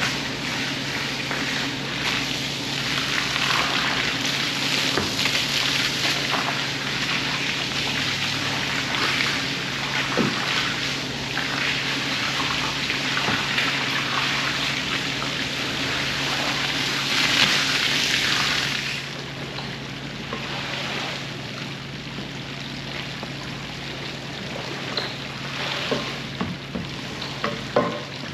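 Water hissing and splashing over a wool rug being washed, with a steady low hum underneath. The water noise drops off noticeably about two-thirds of the way through, leaving a few small splashes near the end.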